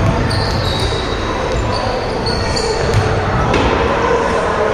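Basketball game play on a hardwood gym court: a ball bouncing, and short high squeaks of sneakers on the floor, echoing in a large hall.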